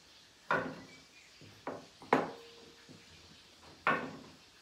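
Kitchen knife chopping soft canned jackfruit pieces on a wooden chopping board: four sharp knocks of the blade at uneven intervals, the third the loudest.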